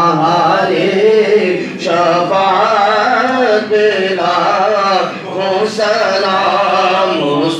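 A man singing a devotional Salaam chant unaccompanied into a microphone, a melismatic line in long phrases with short breaks between them.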